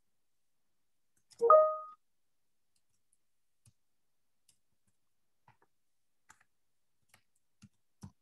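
A short, loud tone about a second and a half in that glides upward and settles briefly on one pitch, followed by a few faint scattered clicks.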